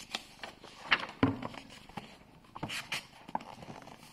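Pages of a picture book being turned by hand: paper rustling, with a few soft knocks as the book is handled.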